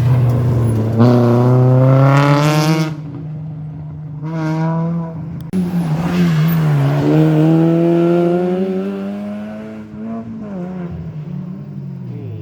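A rally car's engine accelerating hard through the gears, loud. Its pitch climbs steeply three times, each climb broken off by a gear change, then it settles lower near the end.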